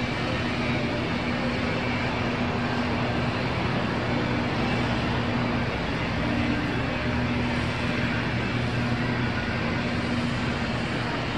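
Steady city traffic noise with a constant low engine hum.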